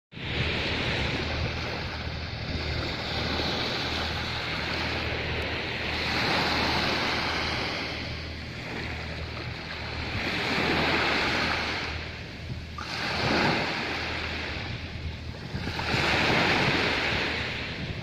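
Small sea waves washing up on a sandy beach, the hiss of surf swelling and fading every three to five seconds. A steady low wind rumble on the microphone runs underneath.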